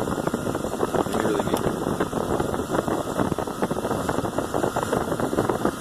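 2000 GMC Sierra's 4.8-litre V8 engine running steadily at idle.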